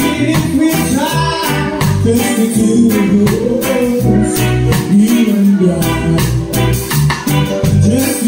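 A live band playing with drum kit, electric bass and keyboard: a steady drum beat and bass line under a smooth, gliding melody.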